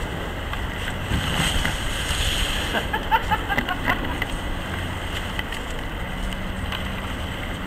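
Wind buffeting the microphone, with rustling and scraping as an open canoe is shoved down a grassy bank toward the river. Brief faint voices about three seconds in.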